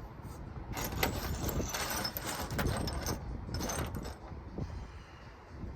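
Pieces of glass knapping material clinking and rattling together as they are handled, a busy clatter from about a second in to about four seconds in, then quieter.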